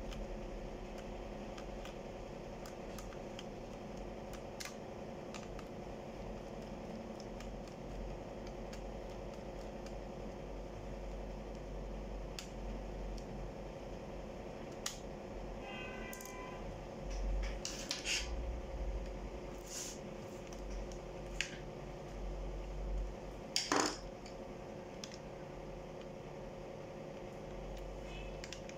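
Screwdriver and loose screws clicking and scraping against the plastic base of an HP ProBook 4530 laptop during disassembly, over a steady background hum. Light clicks come now and then, busier in the second half, with one sharper click near the end.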